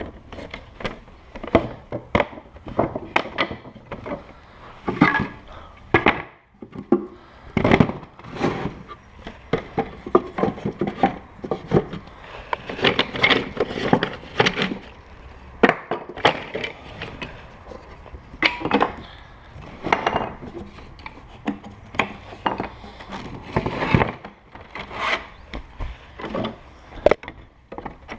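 Wooden beehive frames and plastic foundation sheets being handled and fitted together: an irregular run of sharp clicks, knocks and rubbing of wood and plastic.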